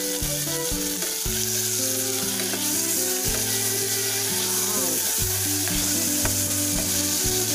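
Chopped tomatoes, onions and garlic sizzling in hot oil in a stainless steel pot, stirred with a spatula: a steady frying hiss with the scrape of the spatula in the pan.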